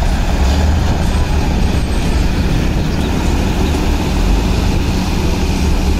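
Concrete mixer truck's diesel engine running steadily: a deep rumble under a wide hiss.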